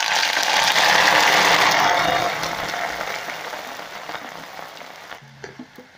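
Omena (Lake Victoria sardines) tipped from a ladle into hot cooking oil in an aluminium pot, the oil sizzling and crackling hard the moment they go in, then slowly dying down.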